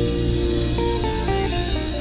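Live band music: an electric guitar picks a short run of single notes that step up and down over a held low note. No singing or drums are heard.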